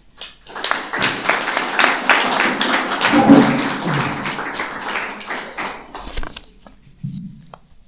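Audience applauding: many hands clapping that builds quickly, then thins out and stops after about six seconds.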